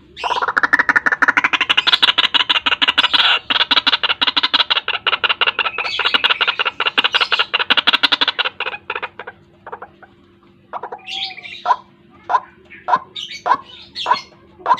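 White-breasted waterhen (ruak-ruak) calling: a fast, dense run of rapidly repeated notes for about eight seconds, then slower single calls spaced about half a second apart.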